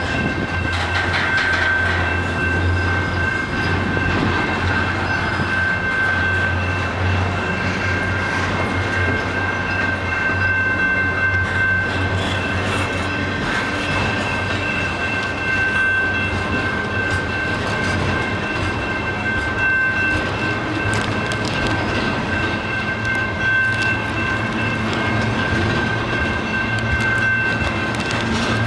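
Freight train rolling slowly past, its wagons' wheels clacking over the rail joints. A steady low rumble and a constant high-pitched squeal run underneath.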